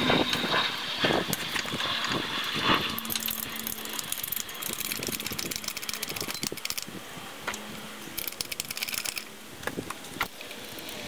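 Irregular metallic clicks and rattles from an engine hoist and its lifting chains while the suspended engine is moved in the engine bay.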